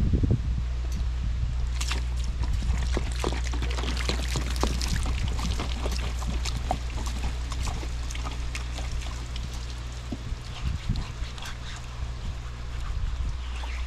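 Portable bandsaw sawmill's engine running with a steady low hum, with scattered crackling and clicking over it. The engine hum dies away about ten seconds in.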